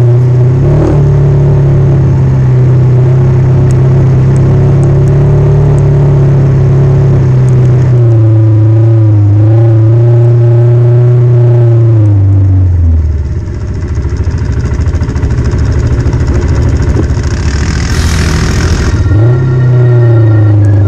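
ATV engine running at steady trail speed, then dropping to low revs about twelve seconds in as the throttle comes off, and revving back up near the end. A short rushing hiss comes just before it picks up again.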